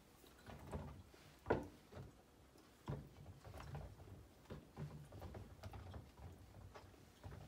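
Kitchen knife cutting green peppers on a wooden cutting board: faint, irregular knocks of the blade on the board, the loudest about one and a half seconds in.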